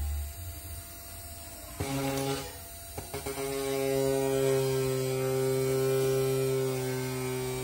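Tamagawa 200 W brushless servo motor running on a three-phase drive, giving an electric hum. A low hum cuts out near the start, a higher hum comes in about two seconds in, breaks off with a click, and from about three seconds on it holds steady.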